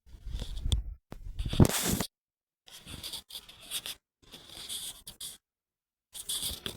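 Irregular bursts of scratchy, crackling static, each half a second to a second long, with the loudest about one and a half seconds in, cutting off abruptly between bursts. The uploader says this recorded static has another cause and is not the electrical noise heard from the freshly watered plant pot on its plastic tray.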